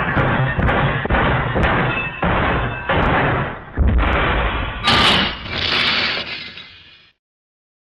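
Crash sound effect: a run of heavy crashing and smashing impacts piling up for about seven seconds, with a brighter crash about five seconds in, then fading out.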